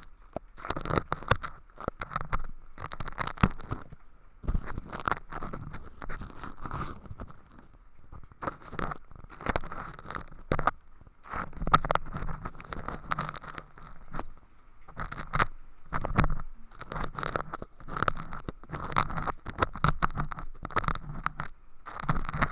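Ear pick scratching and crackling through thin, crispy sawdust-like flakes inside a transparent tube at the left ear of a handmade binaural microphone, in dense runs of close scrapes with brief pauses between them.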